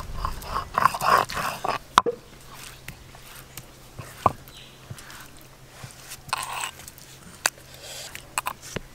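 Fingers scraping wet ginger-garlic paste off a stone grinding slab and into a clay bowl: soft, wet scraping and squishing, busiest in the first two seconds, with a few light clicks.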